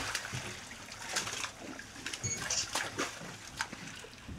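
American crocodile hauling itself out of the river onto the mud bank: irregular wet slaps and sharp knocks, with a brief high chirp about two seconds in.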